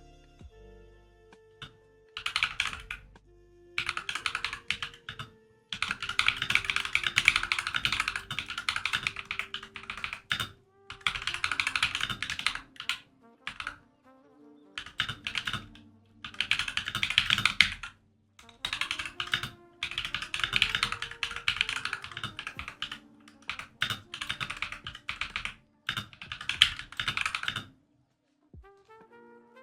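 Fast typing on a custom-built 96% mechanical keyboard: dense runs of key clicks lasting a second or two, broken by short pauses, over soft background music.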